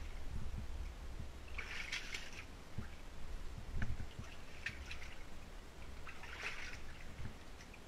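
Shallow water splashing and sloshing in several short bursts as someone moves through a flooded brick-lined mine tunnel, over a steady low rumble.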